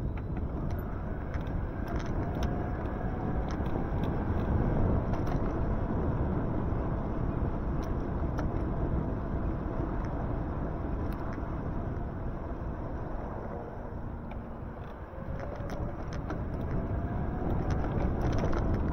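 Steady rumble of tyre and wind noise from an e-bike ride on wet pavement, with scattered small clicks and a faint whine that rises near the end.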